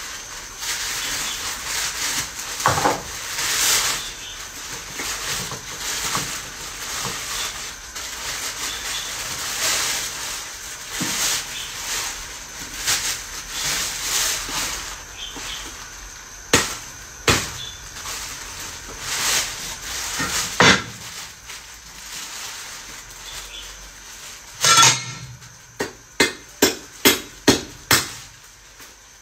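Kitchen work at the counter: cookware and utensils clinking and scraping, with scattered sharp knocks. Near the end comes a quick run of about six sharp knocks, roughly two or three a second.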